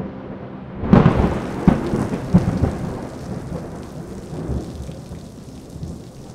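A thunderclap cracks about a second in and rumbles on for a couple of seconds over steady rain. The rain carries on as the thunder dies away.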